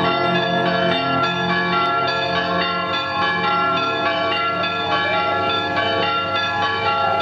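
Folk band playing an instrumental tune on accordion and fiddles, with many steady held notes and clear note changes. The low bass notes drop out about two and a half seconds in.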